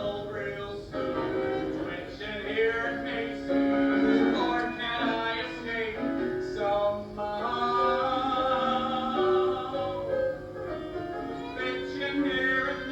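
A vocal trio singing a show tune with instrumental accompaniment, holding long notes that change every second or so.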